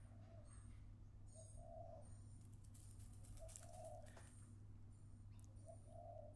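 Faint dove cooing: four two-note coos, a short note then a longer one, about every two seconds, over a low steady hum.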